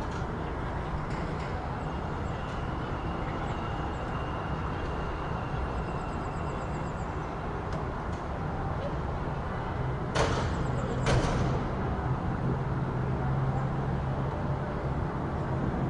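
City street ambience: a steady traffic rumble, with a low engine hum growing stronger about two-thirds of the way through. Two sharp bangs, about a second apart, stand out as the loudest sounds.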